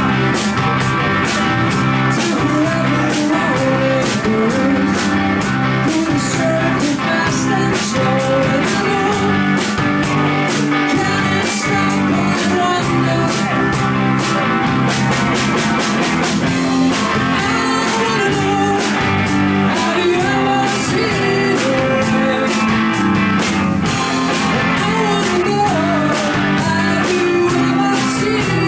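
Rock music with strummed guitar, a steady drum-kit beat and singing.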